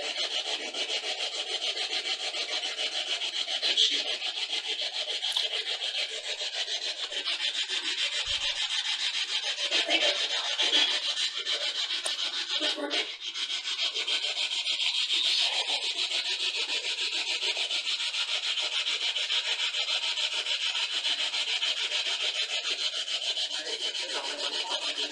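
A steady, rapidly pulsing scratchy hiss, like rasping static, with a few brief louder scrapes or knocks on top of it.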